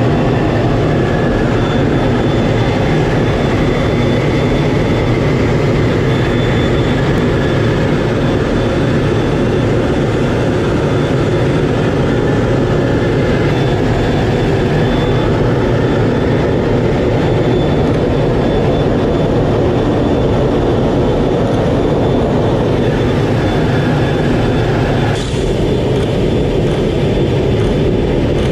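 Steady jet engine and airflow noise inside a fighter jet's cockpit in flight, with a thin high whine running through it. There is a brief drop near the end.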